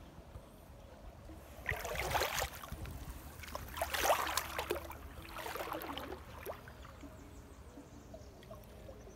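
Shallow seawater sloshing and splashing around legs wading through it, in three bursts of about a second each, roughly two, four and six seconds in, with a low rumble underneath.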